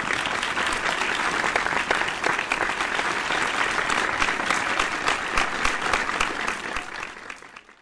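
Applause: many hands clapping in a dense, even patter that fades out near the end.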